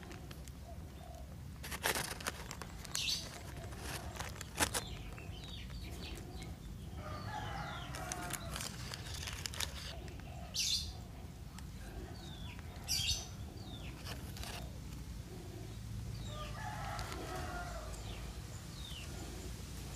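Chickens clucking and a rooster crowing, with a few sharp clicks from bonsai wire being wound and handled.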